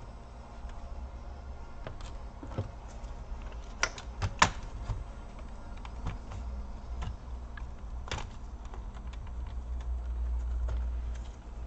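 Plastic clicks and snaps from a laptop palmrest's clips being pried and worked loose from the bottom case, with a cluster of sharper snaps about four seconds in and another about eight seconds in, over a low rumble of handling.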